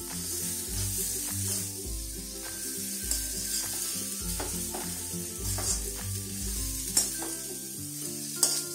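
A steel spoon stirs and turns a potato, onion and carrot filling frying in a steel kadhai, with a steady sizzle and a few sharp clinks of the spoon on the pan near the end. Background music with a slow bass line plays underneath.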